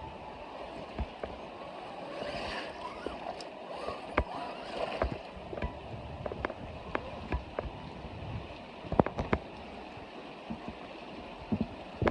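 Creek water running and sloshing, with scattered sharp clicks and knocks throughout, the loudest a pair about nine seconds in.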